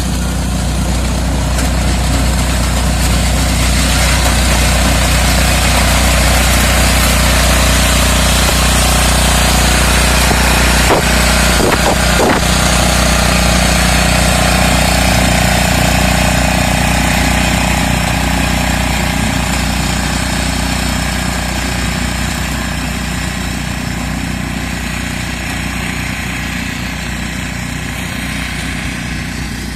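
Vardhman power reaper's engine running steadily, loudest through the middle and easing off slightly toward the end. A couple of short knocks come about eleven and twelve seconds in.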